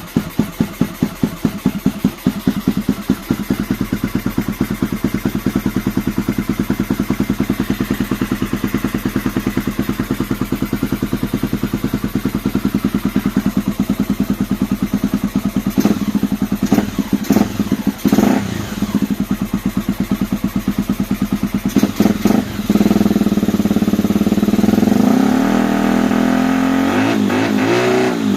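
Honda Tornado 250's single-cylinder four-stroke engine running through an FMF aftermarket exhaust, idling with a loud, pulsing beat. Past the middle it gets a few quick throttle blips. In the last few seconds it holds higher revs, rising and falling.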